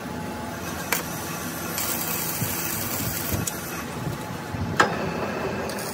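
Lathe running steadily, turning a cracked alloy wheel rim while the rim is arc-welded. A hiss comes in from about two seconds in to about three and a half, with a sharp click about a second in and another near the end.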